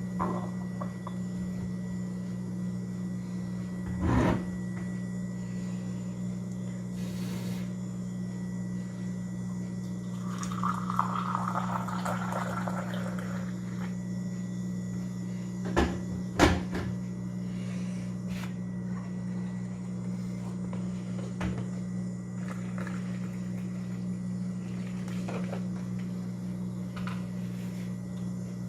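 Hand-brewing coffee in a kitchen: a few sharp clunks and knocks of utensils and cupboard, with a few seconds of pouring about ten seconds in, over a steady low hum.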